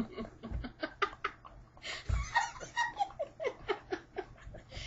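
People laughing hard: a quick run of short laughs, each dropping in pitch, heaviest in the second half.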